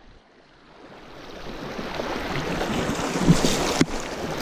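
Steady rush of mountain stream water, fading up from near silence over the first two seconds, with some wind on the microphone.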